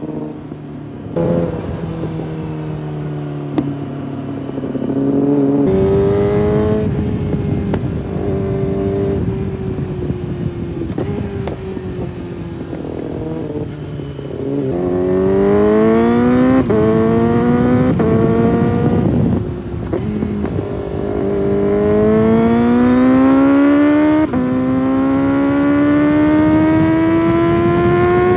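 2005 Yamaha YZF-R6's inline-four engine accelerating hard through the gears: the pitch climbs steadily, then drops abruptly at each quick upshift, several times over. A few sharp pops sound in the first few seconds.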